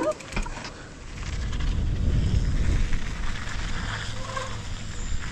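Wind rumbling on a helmet-mounted action camera's microphone, mixed with tyre noise from a mountain bike rolling down a dirt trail; the rumble builds after about a second in.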